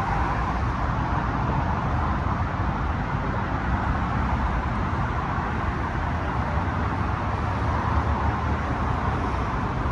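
Steady road-traffic noise: an even low rumble with a hiss over it, with no separate events standing out.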